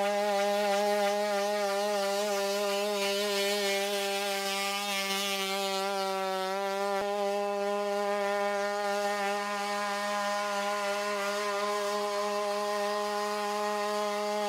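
Boston Dynamics WildCat quadruped robot's onboard engine running steadily, a constant high-pitched buzzing drone that wavers slightly in pitch in the first half, with one click about halfway through.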